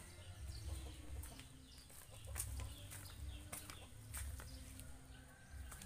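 Chickens clucking faintly, a scatter of short clucks over an on-and-off low rumble.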